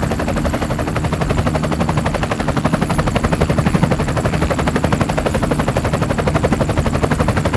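Helicopter rotors beating with a fast, even chop over a steady low engine hum.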